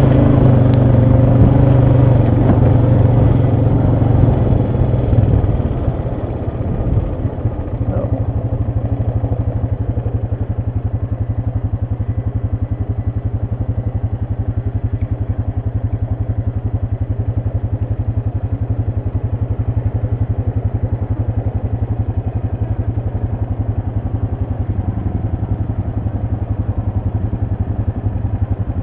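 ATV engine running, louder and under more throttle for the first six seconds or so, then dropping back to a steady, lower run with an even pulse.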